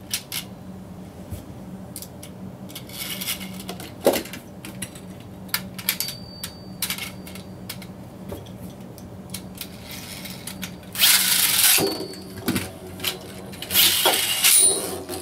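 Small plastic clicks and handling as a Beyblade is fitted to its launcher, then about eleven seconds in a loud whirring launch, with the spinning top whirring and rattling on the plastic stadium near the end.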